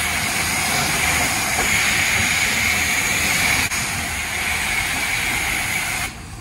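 Self-serve car wash spray wand jetting rinse water onto a pickup truck. It makes a steady hiss that stops shortly before the end.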